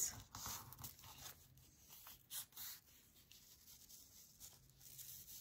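Faint rustling and crinkling of a thin strip of old book-page paper being folded and pressed by hand over a coffee-filter envelope, in a few short rustles, most of them in the first three seconds.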